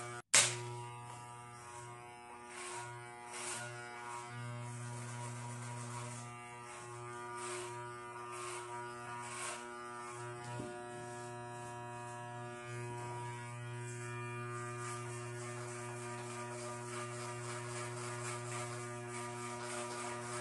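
Corded electric hair clippers buzzing steadily as they cut hair, one even mains buzz throughout. Just after the start the sound briefly drops out and is followed by a single sharp click.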